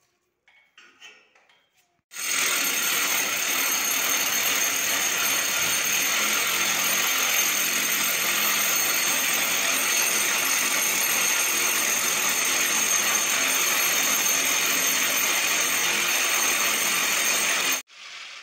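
Electric hammer drill boring into a plastered wall, running steadily for about sixteen seconds. It starts about two seconds in after a few faint knocks, and stops abruptly near the end with a short quieter run-down.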